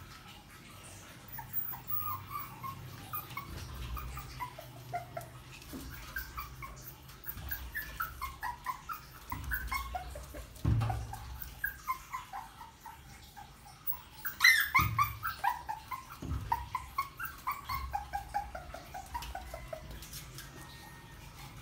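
Small puppy whimpering and yipping in short high cries over and over, with a few dull knocks in between; the cries are loudest a little past the middle. It is whining at a closed door it wants to get through.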